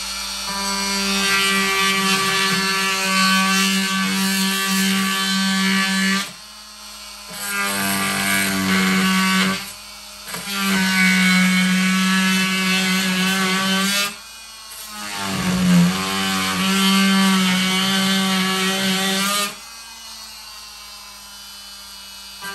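Fein MultiMaster oscillating multi-tool cutting through a melamine-faced chipboard panel, a steady buzzing tone. It runs in four stretches of roughly two to six seconds with brief pauses between, and stops about three seconds before the end.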